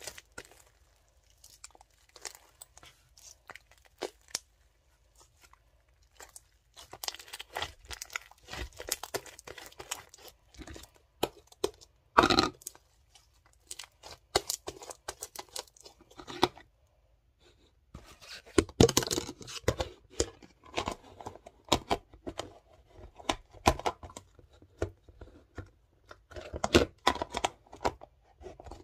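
Slime being squeezed, stretched and pressed by hand, its trapped air bubbles popping in irregular clusters of sharp clicks, with quiet gaps between. One louder sound comes about twelve seconds in.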